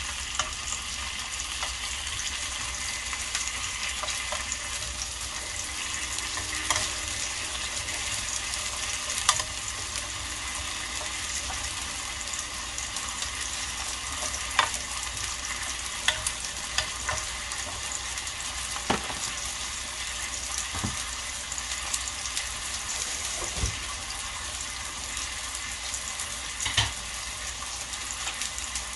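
Beef steaks sizzling steadily in a hot ridged grill pan, with a few sharp clicks and pops scattered through.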